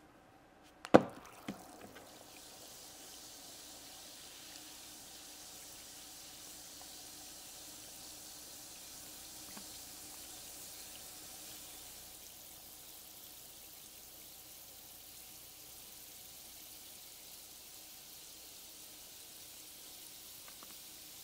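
A bath bomb drops into a plastic cup of water with a splash about a second in, then fizzes with a steady faint hiss as it dissolves.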